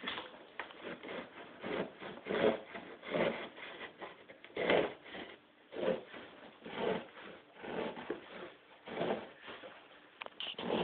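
Knife sawing through a cardboard box in repeated scraping strokes, about one a second.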